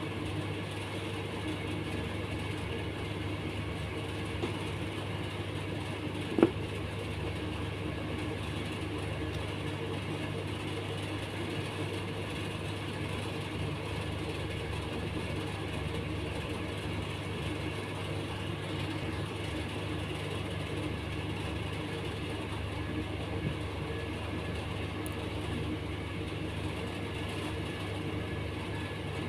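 A steady low hum that holds at one level throughout, with a single sharp click about six seconds in.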